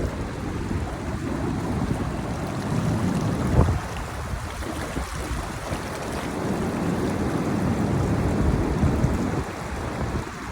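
Ocean surf washing onto a beach: a steady rushing that eases about four seconds in and builds again, with wind buffeting the microphone.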